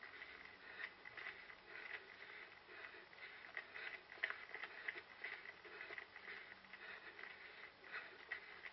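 Faint footfalls of a runner, about two to three a second, picked up by a head-mounted GoPro.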